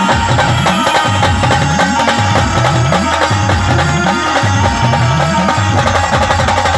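A band playing a folk tune with dense drumming; low drum notes repeatedly slide upward in pitch under a steady melody.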